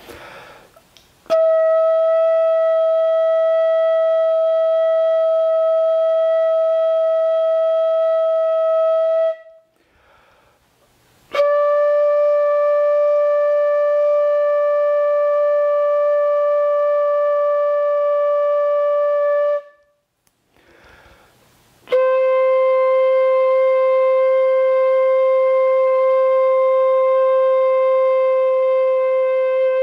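Bamboo pífano (Brazilian transverse fife) playing three long, steady notes of about eight seconds each, stepping down in pitch one note at a time, with a short breath between notes. It is a long-tone exercise for developing a clear, even sound.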